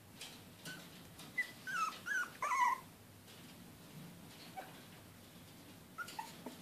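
Four-week-old puppies whimpering: a run of short, high-pitched squeaks about one and a half to three seconds in, then a couple more near the end.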